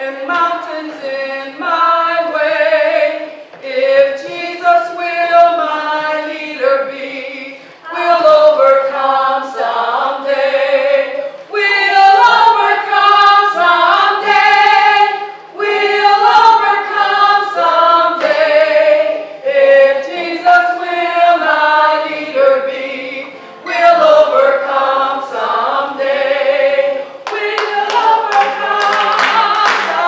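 A small ensemble of women's and men's voices singing a song a cappella in harmony. Near the end, steady hand clapping joins in time with the singing.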